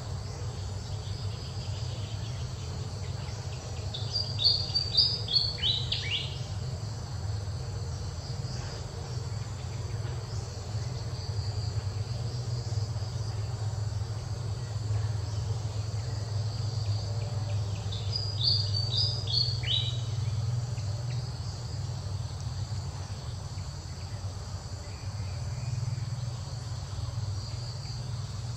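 A steady chorus of insects droning over a low, even hum, with a bird singing twice: a quick run of about six high notes, each sweeping down and the run dropping in pitch. The run comes about four seconds in and again at about eighteen seconds.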